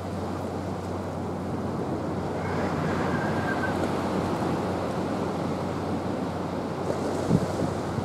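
Sea surf washing and breaking against a concrete seawall and its rocks, a steady rushing wash. One short knock sounds near the end.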